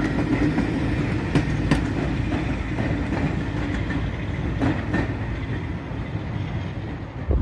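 Passenger coaches rolling past on the track, their wheels clicking over the rail joints. The sound eases off as the end of the train draws away.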